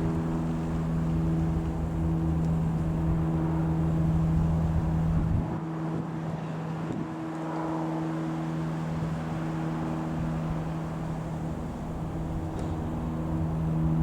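Piper PA-28-161 Warrior light aircraft's four-cylinder piston engine and propeller droning steadily at one pitch as it flies by. Low wind rumble on the microphone eases off about five seconds in.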